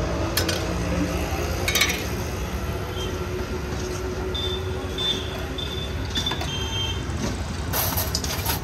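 Steady street traffic rumble, with a few sharp clinks of a steel ladle against steel plates and pots as dal is served: a couple near the start and a cluster near the end.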